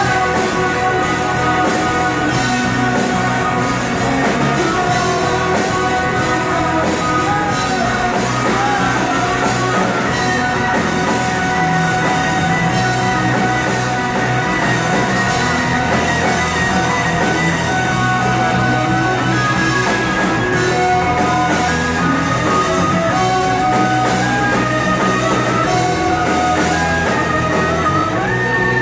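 Live rock band playing on stage, with electric guitars and a drum kit amplified through the venue's PA.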